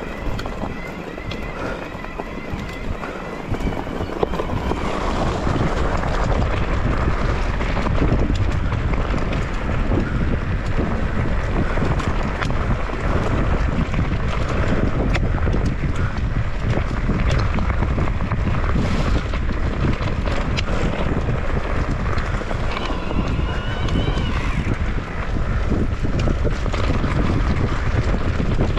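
Wind buffeting the microphone as a low, steady rumble that gets louder about five seconds in, with scattered small clicks and rattles over it.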